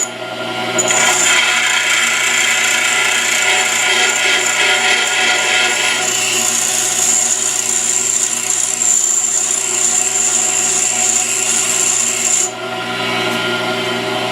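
Pedestal grinder motor humming steadily while a high-speed steel lathe tool bit is held against the spinning grinding wheel, giving a continuous grinding noise. The bit comes off the wheel for a moment at the start and again near the end, leaving only the motor hum.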